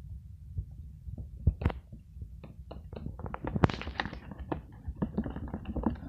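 Glue slime being mixed in a container: a utensil clicks and taps against the sides with wet, sticky sounds. The clicks are sparse at first, then come quicker and louder from about halfway in.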